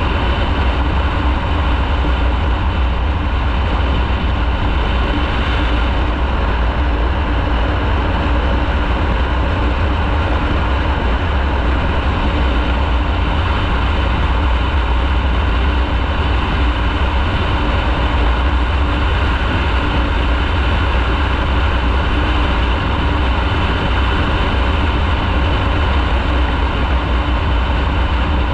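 Motorcycle being ridden at a steady pace, its engine running evenly under a constant rush of riding noise.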